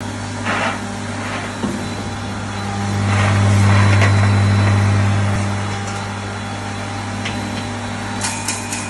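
Cashew grinder's electric motor running with a steady hum that grows louder for a couple of seconds in the middle, while whole cashews spill from a plastic bag onto its stainless-steel hopper tray. Near the end a crackling starts as the nuts are pushed into the feed.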